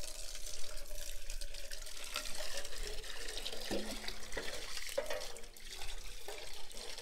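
Water running from an outdoor hose bib and splashing into a black metal pan as the pan is rinsed out.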